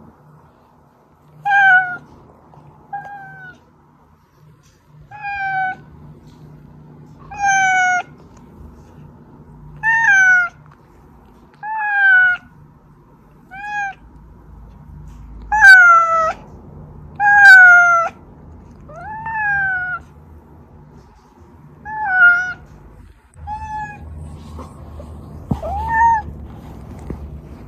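A domestic cat meowing over and over, about one meow every two seconds, most of them sliding down in pitch. The two loudest meows come about halfway through, and the last one rises instead.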